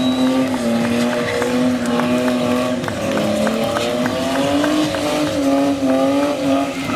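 BMW 3 Series saloon's engine held at high, steady revs, its pitch wavering up and down a little as the car is driven in tight circles, with tyre squeal.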